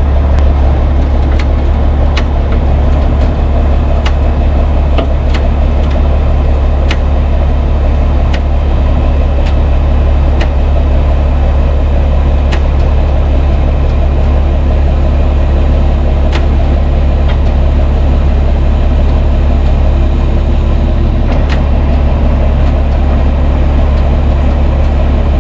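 A tow truck's engine running steadily to power its hydraulic winches while the van is pulled up on the lines, with a strong low drone and scattered faint clicks.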